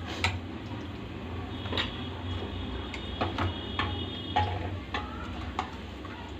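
Spoon knocking and scraping against an aluminium pressure cooker and a small steel bowl while masala is stirred, a handful of separate sharp knocks over a steady low hum.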